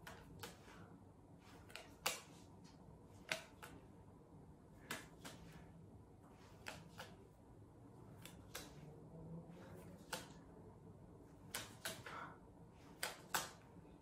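Faint short clicks and taps, about a dozen at irregular spacing, some with a brief hissy tail, over quiet room tone.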